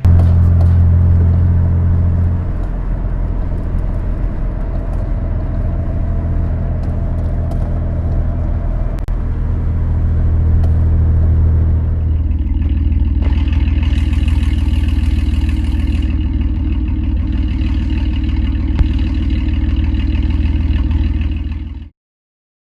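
Honda Civic engine with a spun bearing running at a steady speed. About twelve seconds in its sound grows harsher and fuller, and it cuts off suddenly near the end.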